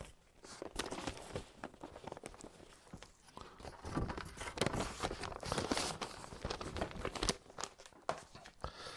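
Vinyl record sleeves and album jackets being handled: irregular rustling of paper and card with soft knocks and clicks, busiest from about four to seven seconds in.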